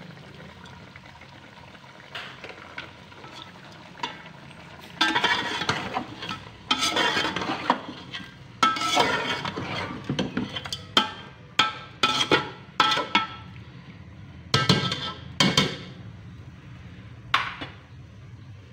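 Metal spoon and slotted metal spatula scraping and clanking against a metal cooking pot while chunks of chicken, potato and tomato masala are stirred. The strokes are irregular and start about five seconds in, with several sharp knocks on the pot later on.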